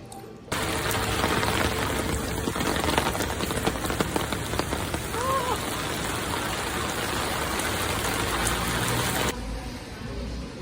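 Heavy rain pouring down in a steady hiss. It starts abruptly about half a second in and cuts off just as abruptly about a second before the end.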